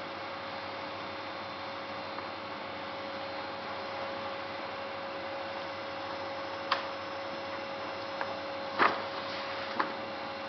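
Polar 90 CE guillotine paper cutter running idle with a steady, even hum. Three sharp knocks come near the end, the second the loudest.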